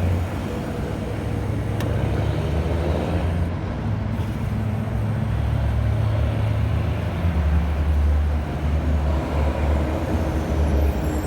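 Aerosol tire sealant-inflator can hissing steadily as it fills a flat car tire through the valve stem, over the steady low hum of a vehicle engine running nearby.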